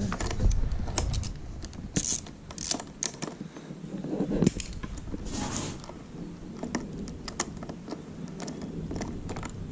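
Quarter-inch ratchet clicking in short runs of rapid ticks as it backs out an 8mm bolt holding the steering-wheel airbag, with some handling knocks.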